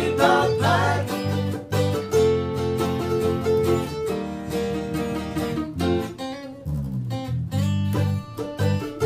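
Instrumental break of a country-style song: acoustic guitar playing quick picked and strummed notes over a line of low bass notes.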